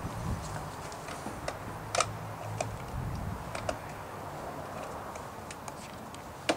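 Flagpole being handled and seated in a wall-mounted bracket: scattered light clicks and taps, one a little louder about two seconds in, over a low steady hum.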